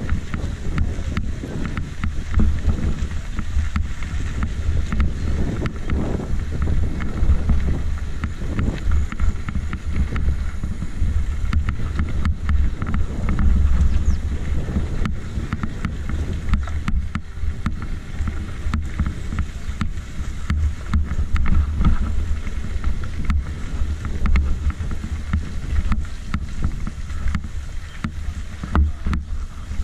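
Wind buffeting a camera microphone carried on a moving bicycle: a low, uneven rumble that swells and sags, with occasional small knocks.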